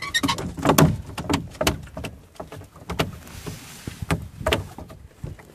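Irregular knocks and slaps of a freshly caught fish being put into an orange plastic tub in a small boat and thrashing against the plastic, about a dozen hits with the loudest about a second in.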